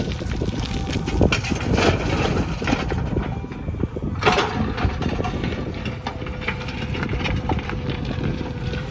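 Diesel engine of earthmoving machinery running steadily, with a few short crackling noises about a second in and again about four seconds in.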